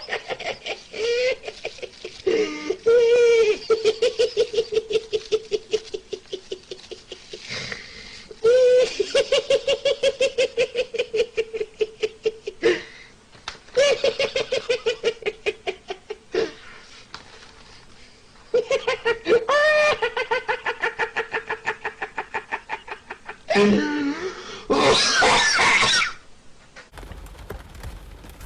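A person laughing hard in several long bouts, a high, quickly pulsing 'ha-ha-ha' broken by brief pauses for breath.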